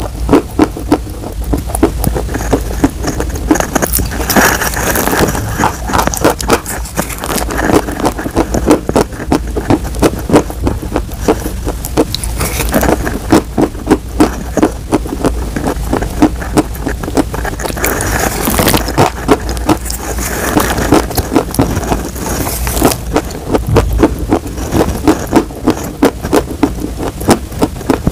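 Close-miked crunching of powdered chalk and chalk crumbs: a dense run of crisp crackles, with louder crunches every second or so.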